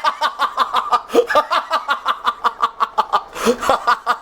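A person laughing: a long run of quick, even snickering bursts, about six or seven a second.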